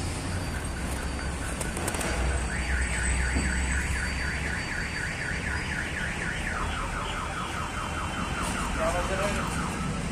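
Car alarm sounding: a rapid rising whoop repeated about five times a second, switching to a lower-pitched pattern about midway. A low rumble runs underneath in the first half.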